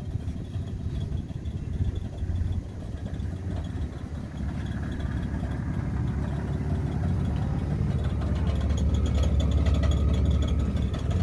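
2002 Ford Ranger pickup's engine running with a steady low rumble that grows louder over the second half.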